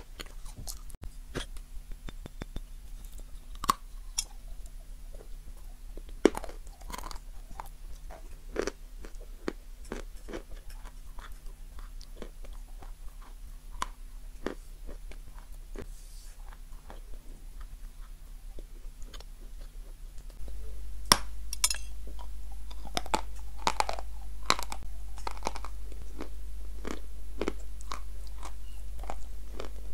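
Close-up mouth sounds of biting and chewing a crunchy dried marshmallow bar: a run of sharp crackling crunches. The loudest, densest crunching comes a little past two-thirds of the way through.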